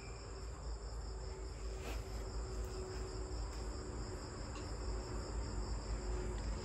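Faint, steady high-pitched trilling of crickets, with a low hum underneath.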